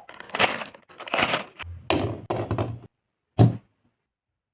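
Snack chips being crushed: irregular crunching and crackling for about three seconds, then a single loud thump.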